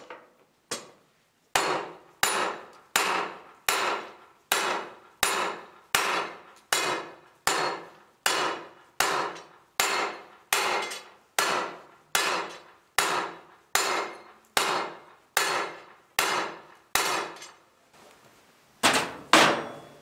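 Hand hammer striking hot half-inch square mild-steel bar on metal, a steady run of about one and a half blows a second, each ringing briefly, that stops about seventeen seconds in. Two louder blows follow in quick succession near the end.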